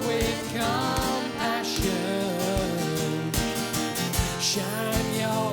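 Worship song: singing over acoustic guitar, with a steady beat.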